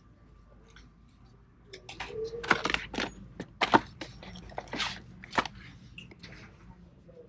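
Cardboard cosmetic boxes being handled and pulled off a store shelf: a run of sharp clicks, crackles and scrapes starting about two seconds in, loudest in the middle, then fading.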